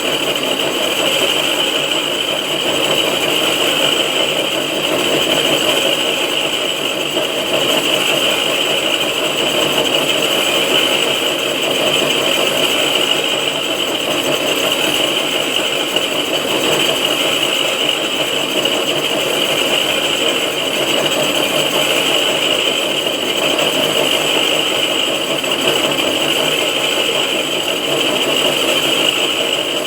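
6R12 vertical knee-type milling machine running steadily, milling the face of a cylinder head, with an even metallic rattle and a high whine that holds throughout.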